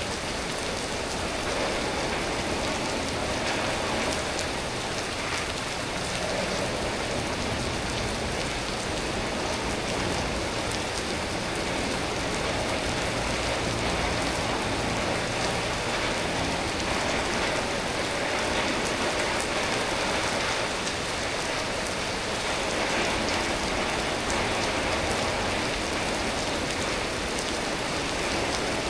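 Steady, unbroken tropical-storm rain falling and pattering on surfaces.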